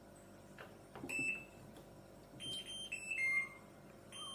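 Electrolux washing machine's control panel beeping as it is switched on and started: a click and a short beep about a second in, then a quick string of high electronic beeps at two pitches near the end. The beeping signals its E2 error, which the owner puts down to a faulty water sensor.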